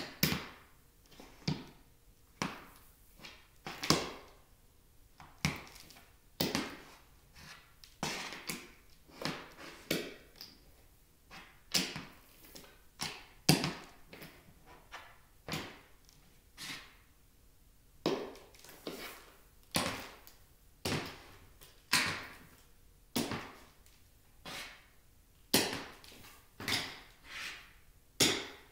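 Tap-plated high-heeled loafers walking on a hardwood floor: an unhurried, even series of sharp tap clicks, about one to two steps a second, each ringing briefly in a small bare room.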